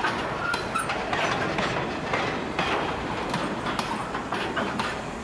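Wheels of SSR grain hopper wagons clickety-clacking along the track as the tail of a freight train rolls past, with a short faint squeal about a second in.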